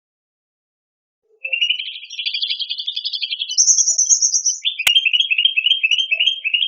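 Cucak rante songbird singing: after a short silence, a fast trill that jumps higher partway through, then a run of quick rising notes at about four a second. A single sharp click sounds in the middle.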